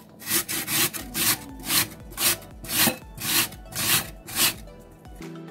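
Raw peeled potato scraped up and down a handheld metal grater-slicer, cutting it into thin strips: a rhythmic rasping of about two strokes a second, about nine in all, stopping shortly before the end.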